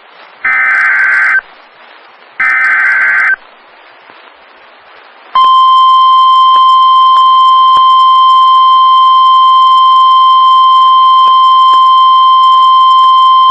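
Weather radio emergency alert signal: two short bursts of warbling digital data tones (the SAME header), then about five seconds in a loud, steady single-pitch warning alarm tone of about 1050 Hz that holds on. It signals that a severe thunderstorm warning is about to be broadcast.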